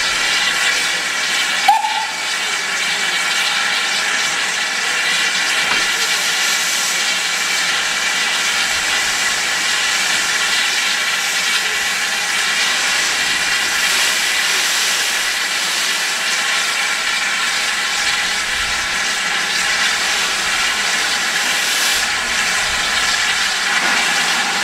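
LSWR T3 class steam locomotive No. 563, a Victorian 4-4-0, standing with steam hissing steadily and loudly. A brief rising squeal sounds about two seconds in.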